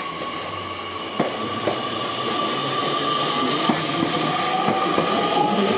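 A Nishitetsu 6050-series electric train, converted into a dining train, moving along the platform. It makes a steady high whine, and its wheels click over the rail joints, getting louder as it goes.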